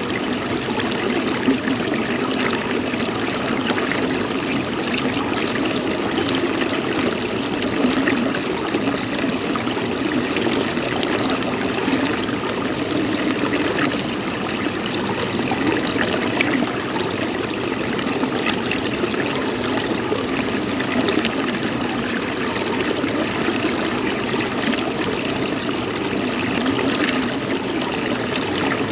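Running water, a steady trickling flow with no breaks.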